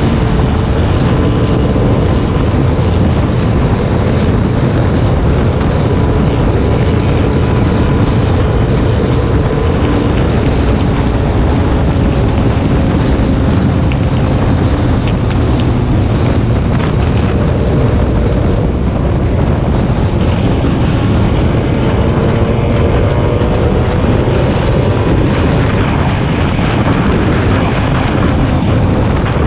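A vehicle travelling at highway speed: a steady rush of wind across the microphone over the engine's drone, whose pitch drifts slowly up and down.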